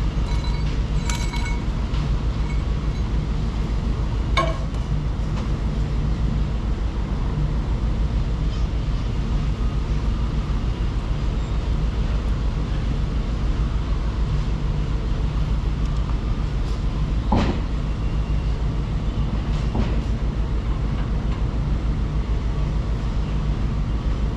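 An engine running steadily at idle, with a few sharp metallic clinks and knocks: one about a second in, one near four seconds, one near seventeen seconds.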